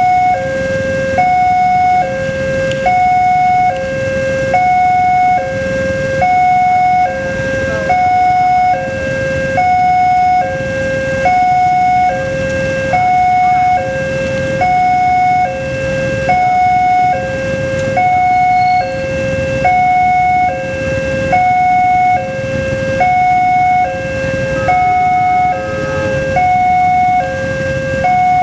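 Railway level-crossing warning alarm sounding at a closed crossing: an electronic two-tone signal alternating high and low about once a second, steady and unbroken, warning that a train is approaching.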